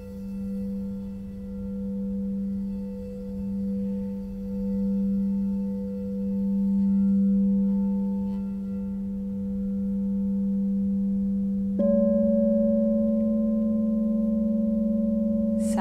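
Singing bowl ringing with a steady low hum that swells and fades in slow waves. About twelve seconds in, a slightly higher bowl tone takes over suddenly.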